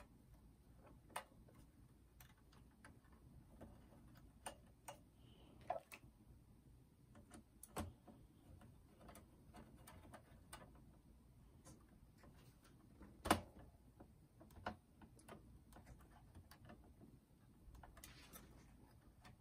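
Faint scattered clicks and taps of a screwdriver and small parts being handled inside an open boombox chassis during reassembly, with one sharper knock about two-thirds of the way through.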